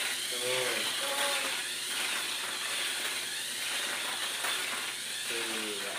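Tamiya Mini 4WD car running laps on a plastic track: a steady high whir from its small electric motor and gears, powered by cheap 700 mAh rechargeable AA cells. Short voices break in near the start and near the end.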